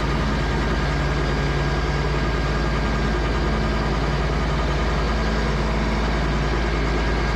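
LS MT225s compact tractor's diesel engine running at a steady, unchanging speed.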